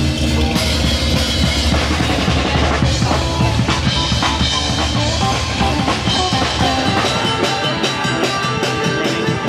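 Music with a drum kit playing a driving beat, bass drum and snare hits over sustained instruments.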